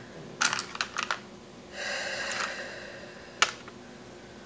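Light clicks and taps of a makeup brush and eyeshadow palette being handled: a few in the first second and a sharper one about three and a half seconds in, with a short rustle around two seconds in.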